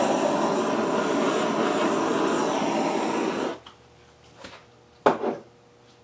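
A small USB-powered air blower runs with a steady rushing whir as it blows air across wet acrylic paint, then cuts off suddenly a little past halfway. Two short knocks follow, the second one sharper and louder.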